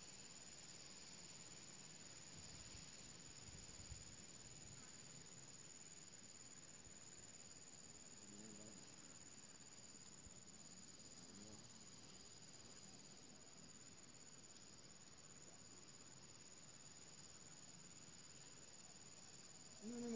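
Faint, steady high-pitched insect drone over near silence.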